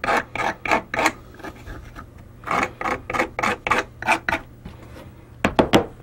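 An X-Acto knife with a chisel blade scraping the broken-out edges of drilled holes on the back of a masonite panel, cleaning off the chaff so the LEDs and switches will fit. It goes in quick strokes, about four or five a second, in bursts with short pauses between them.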